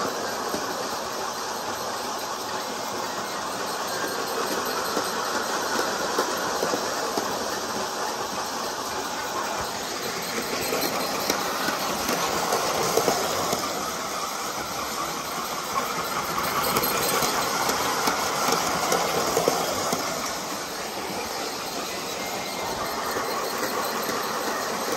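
Bachmann G-scale Percy model train running round a track loop with trucks and coaches in tow: a steady whir with wheels clicking on the track and the cars rattling, growing louder twice as the train passes close by.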